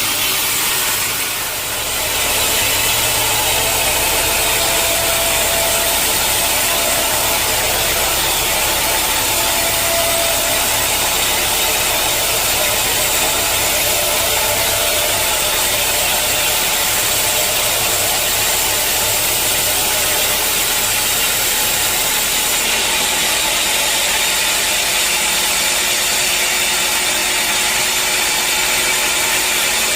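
Sawmill machinery running steadily and loudly, with a brief dip about a second and a half in.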